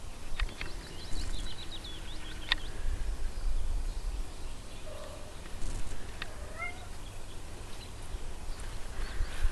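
Short, high-pitched animal calls: a quick run of chirps in the first couple of seconds, then a few brief calls later, over a low wind rumble on the microphone.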